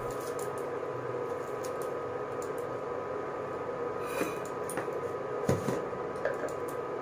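A steady machine hum with several thin, constant tones, with a couple of light clicks and knocks from kitchen utensils being handled about four and five and a half seconds in.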